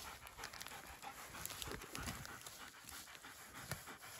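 German Shepherd dog panting close by, with the soft scratching of a small hand cultivator raking through soil and needle litter.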